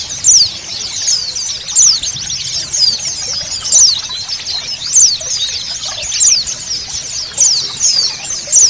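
A flock of white-eyes (pleci) chirping together, with many quick, high, down-slurred notes overlapping, over the steady sound of running water.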